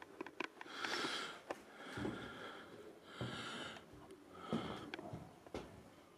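Close breathing through the nose, four breaths about a second apart, with small sharp clicks and knocks in between.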